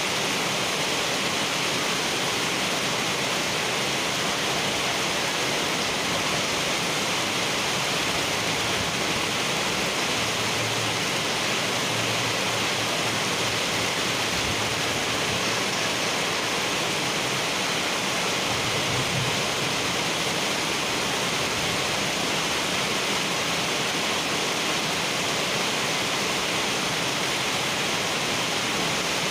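Heavy rain pouring steadily onto wet asphalt pavement, an even hiss of countless drops splashing on the waterlogged surface.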